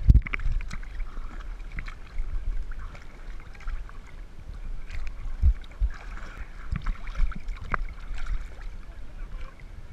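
Sea water sloshing and lapping against a camera held at the water's surface, with a low rumble and several muffled knocks.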